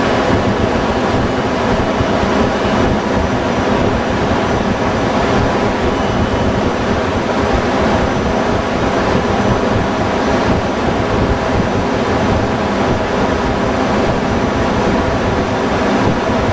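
Container ship engine-room machinery running: a loud, steady drone of dense noise with several constant hums in it, and no single event standing out.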